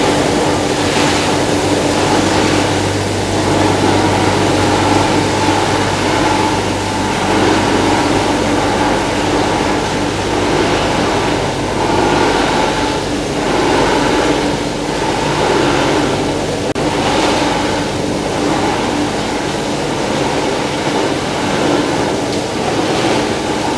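Machinery of a PP woven-bag recycling line running: a loud, steady mechanical din of rushing noise with a constant low hum and recurring brief swells.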